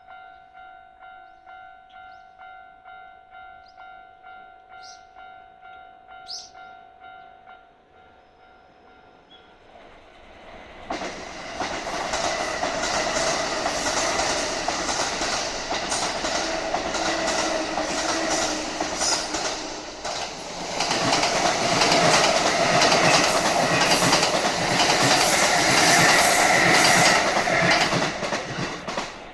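A Japanese level-crossing warning bell ringing in steady repeated dings, about one and a half a second, which stops about eight seconds in. A Kintetsu electric train then comes up and runs loudly over the crossing with a clickety-clack of wheels on the rails. This stretch of line is a 30‰ climbing grade.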